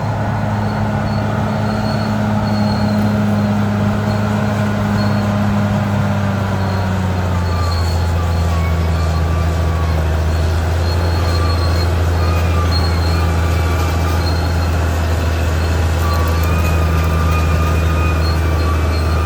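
Caterpillar D6R XL bulldozer's diesel engine running steadily, its pitch dropping slightly about seven seconds in. A faint wavering high whine runs over it.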